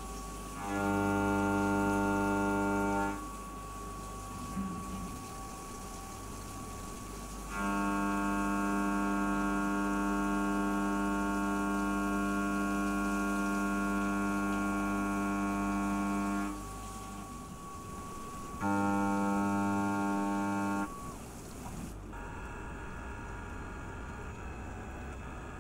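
SYIL X5 CNC mill's end mill cutting a soft jaw under flood coolant. It gives a steady whine at one pitch in three cutting passes, the middle one about nine seconds long, each starting and stopping abruptly. Beneath it runs the hiss of coolant spray, which cuts off near the end.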